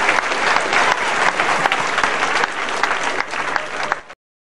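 Crowd applauding, a dense patter of clapping that cuts off abruptly about four seconds in.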